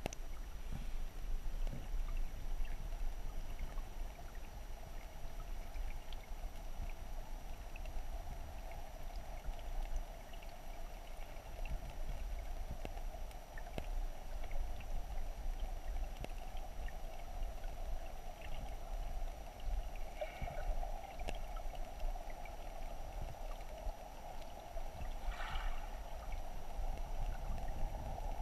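Muffled, steady rush of creek current heard underwater, with a low rumble and a few faint clicks.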